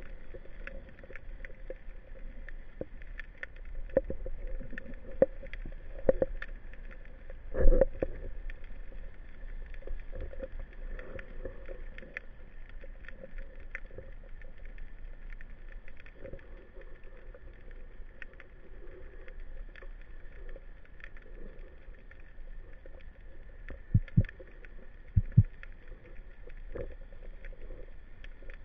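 Underwater ambience picked up through a camera housing on a speargun: a steady muffled hiss with scattered sharp clicks and crackles, and a few dull knocks, the loudest about a third of the way in and two close together near the end.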